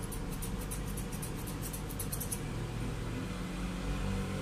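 Grooming scissors snipping a dog's facial fur in a quick run of small crisp cuts, about five a second, that stops about two and a half seconds in. A steady low hum lies underneath.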